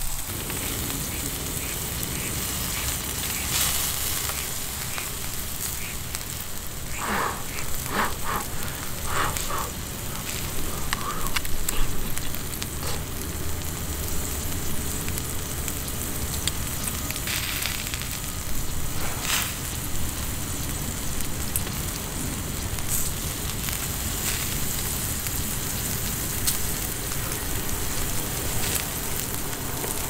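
Wood campfire crackling and hissing, with sharper pops now and then.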